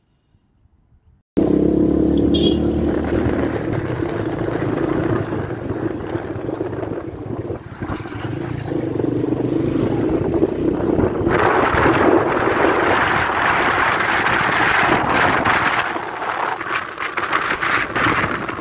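Rumble and rushing noise of a moving vehicle with wind on a phone microphone, cutting in suddenly about a second in after near silence; the hiss grows louder about eleven seconds in.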